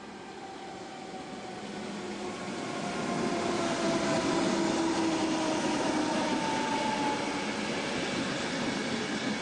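Electric commuter train (blue-and-cream multiple unit) approaching and passing close by. Its wheel and running noise grows steadily louder to a peak about four seconds in as the cab goes past, with humming tones that slowly drop in pitch, then stays loud as the coaches roll by.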